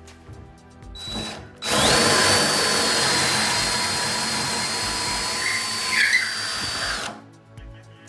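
DeWalt 20V Max cordless drill motor spinning in the second, high-speed gear: a short trigger squeeze about a second in, then a steady high whine for about five seconds that cuts off suddenly near the end.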